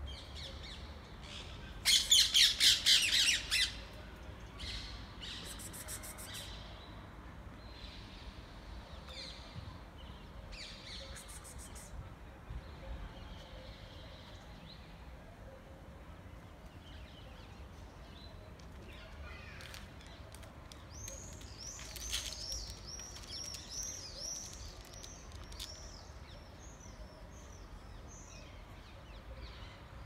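Parrots squawking: a loud burst of rapid, harsh squawks about two seconds in, scattered calls after it, then a run of shorter high calls from about twenty seconds in.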